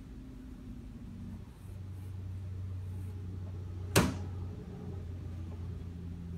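A low steady hum, with one sharp knock about four seconds in.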